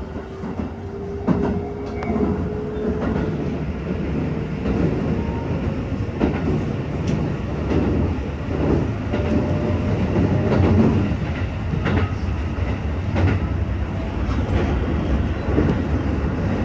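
Shin-Keisei Line electric commuter train heard from inside the carriage as it pulls out of a station and runs on. A steady low rumble is broken by clickety-clack of the wheels over rail joints, most often in the middle of the run.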